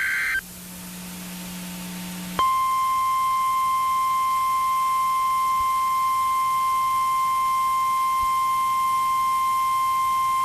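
The end of a NOAA Weather Radio SAME data burst (a shrill warbling screech), a short pause, then the steady 1050 Hz warning alarm tone starting about two seconds in. This is the Emergency Alert System signal that comes before a weather warning.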